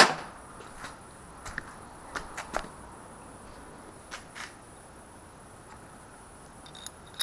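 A sharp click at the start, then a few light scattered clicks and taps of tools and engine parts being handled, over a steady high-pitched chirring of crickets.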